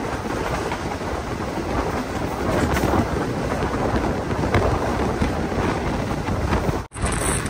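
Green Line Express passenger train running at speed, heard from an open coach doorway: a steady rumble of wheels on the rails and rushing air, with a few faint clicks. The sound cuts out for an instant near the end.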